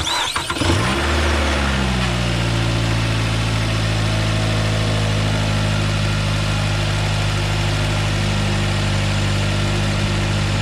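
A 2009 Nissan Altima's 2.5-litre four-cylinder engine is cranked by a newly fitted starter and catches in under a second. The engine speed flares briefly, then settles into a steady idle. The new starter has cured a no-crank, no-start fault.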